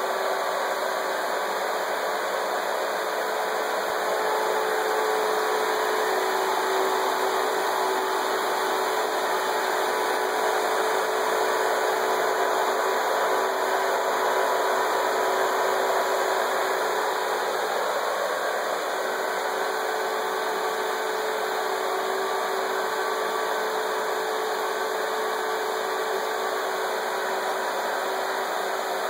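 Small electric blower fans of a homemade tornado machine running steadily: an even whirring hum with a steady pitched tone in it, a little louder from about four seconds in.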